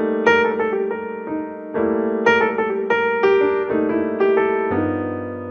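Background piano music: bright electric piano playing chords and short melodic notes at an easy, bouncy pace.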